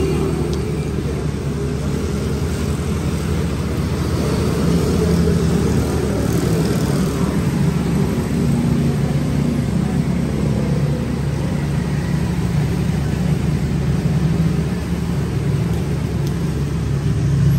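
Street traffic: a steady low engine rumble from passing motorcycles and auto-rickshaws.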